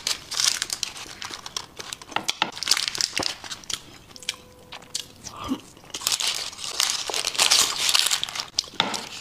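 A metal spoon digging and scraping through a thick chocolate lava cake in a parchment-paper-lined dish, with the paper crinkling: dense crackly clicks and rustles, quieter for a couple of seconds midway.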